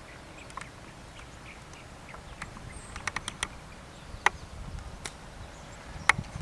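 Outdoor background with scattered bird chirps, then a sharp click about six seconds in: a golf club striking the ball on a short chip shot off the grass.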